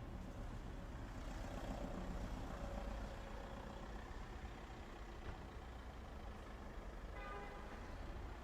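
Ambience of a quiet street with light traffic: a steady low rumble with a vehicle passing about a second in, and a brief pitched sound near the end.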